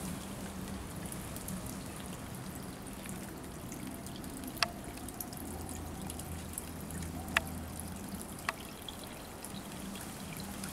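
Water trickling steadily into a small garden pond, with three sharp plinks in the second half.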